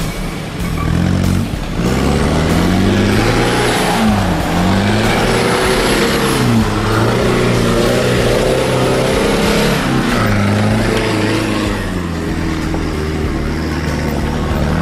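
Toyota Hilux Surf four-wheel drive's engine revving up and down repeatedly under load as it crawls through deep mud ruts, settling to a steadier note in the last few seconds.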